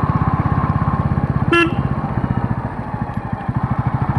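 Bajaj Pulsar motorcycle engine running with a steady, fast putter, and a short horn beep about one and a half seconds in. The engine eases off for a moment after the beep, then picks up again.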